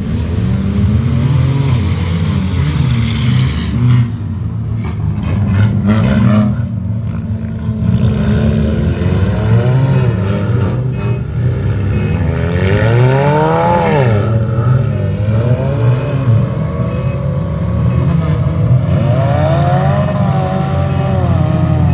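Several front-wheel-drive race cars' engines running together, revved up and down again and again while the field waits to start.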